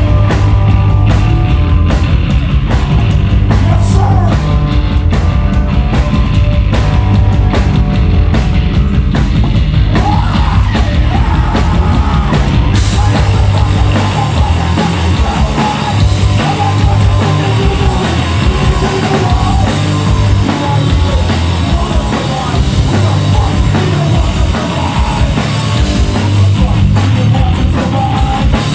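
Hardcore punk band playing live and loud: distorted guitars, bass and drum kit. About 13 seconds in the cymbals come up and the kick drum settles into a fast, steady pattern.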